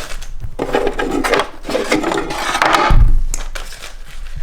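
Irregular rubbing and clattering of equipment being handled, with a low thud about three seconds in.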